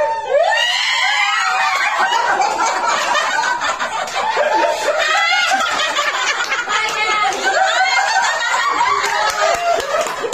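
A small group of people laughing and shrieking together, with excited shouts mixed in, many voices overlapping without a break.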